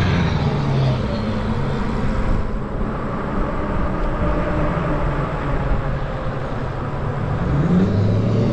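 Wind and road noise from a moving e-bike, with a car passing and pulling away ahead early on. Near the end the e-bike's hub-motor hum comes back, rising in pitch as it accelerates.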